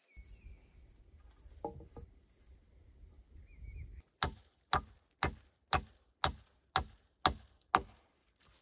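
Wood being chopped: eight sharp, evenly paced blows, about two a second, starting about halfway through.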